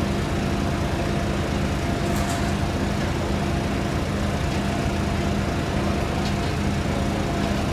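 Steady drone of an engine running at constant speed, an even hum at several pitches over a noisy rumble, with no change in speed.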